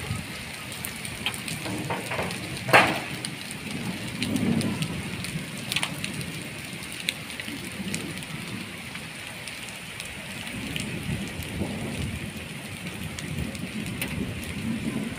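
Heavy rain mixed with hail falling on a concrete yard: a steady hiss with scattered sharp clicks, the loudest about three seconds in.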